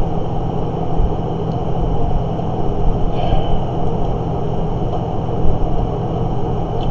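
Steady low rumbling background noise with a hum underneath, unchanging throughout.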